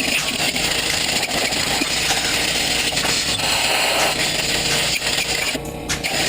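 A power tool running steadily, its high end dipping out briefly near the end.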